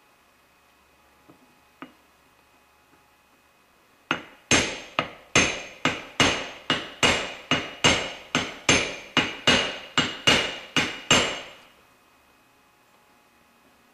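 Hammer blows on a steel tube driver, seating the oil seal in a Dodge NV4500 transmission's front bearing retainer: a quick, even series of about eighteen sharp metallic strikes with a short ring, a little over two a second, starting about four seconds in and stopping abruptly.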